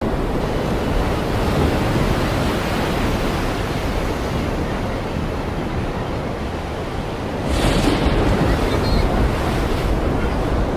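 Storm wind rushing and buffeting the microphone, with a louder surge about seven and a half seconds in.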